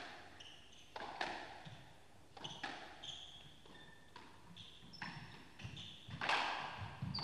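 Squash rally: the ball is struck by rackets and knocks off the court walls about eight times, the loudest hit about six seconds in. Between the hits come short, high squeaks of the players' court shoes on the floor.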